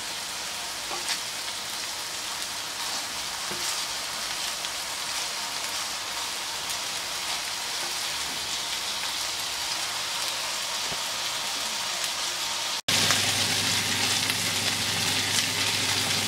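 Beef köfte patties sizzling and crackling as they fry on high heat in their own fat on a dry griddle, with no oil added. About thirteen seconds in the sizzle breaks off for an instant and comes back louder.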